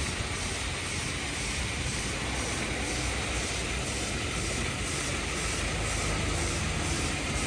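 2005 Istobal M12+ rollover car wash applying active foam: a steady hissing spray with a low machine rumble underneath.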